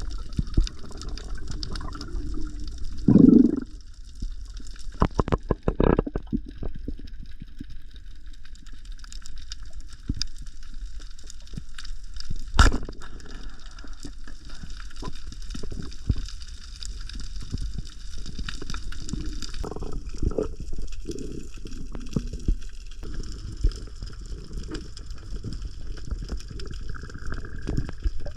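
Water gurgling and sloshing, with scattered knocks and clicks and a louder low burst about three seconds in.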